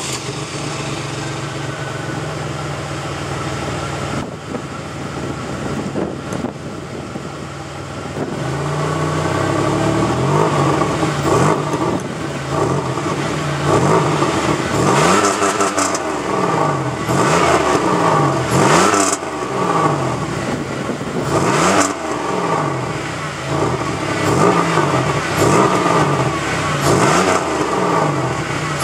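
1998 Pontiac Grand Prix GT's 3.8-litre 3800 Series II V6 idling through its stock exhaust, whose resonator and one rear muffler have rusted holes, then revved over and over from about eight seconds in, the pitch climbing and falling each time.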